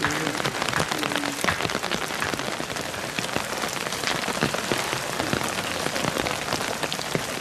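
Rain pattering steadily, a dense stream of irregular drop ticks.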